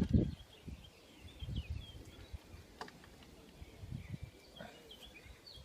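Birds chirping in the background, with a few dull low knocks and one sharp click as a bottom bracket spanner is handled and fitted onto the bike's bottom bracket cup; the loudest knock comes right at the start.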